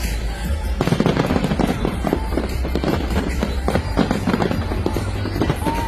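Fireworks banging and crackling in quick succession over loud music with a heavy bass.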